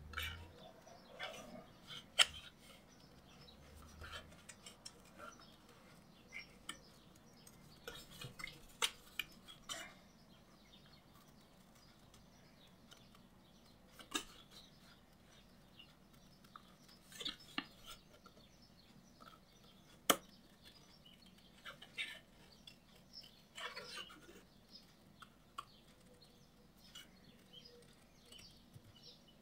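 Small scissors cutting paper in short snips around a small stamped image: quiet, irregular clicks of the blades closing, some sharper than others.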